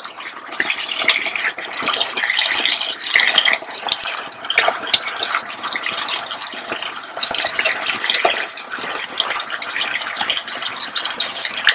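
Chicken and vegetable stir fry with soy-based sauce sizzling in an electric skillet: a steady hiss with crackles, while a spatula stirs and scrapes through the food.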